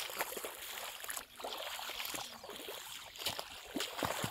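Shallow water and mud splashing and sloshing irregularly as a person wades through a flooded rice paddy.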